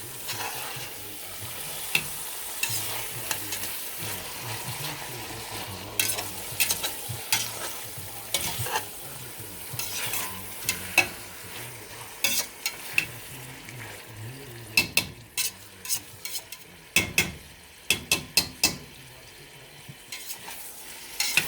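Chicken pieces frying and sizzling in a pan with garlic and onion while being stirred, with a steady hiss broken by many sharp clicks and scrapes of the utensil against the pan, more frequent in the second half.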